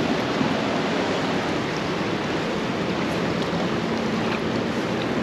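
Steady rushing of river water, an even noise with no distinct events.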